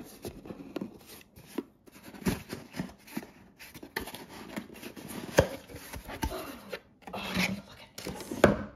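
A cardboard box and its packaging being opened by hand to take out a mug: irregular rustling and scraping with scattered taps, and a few sharp knocks, the loudest about five seconds in and just before the end.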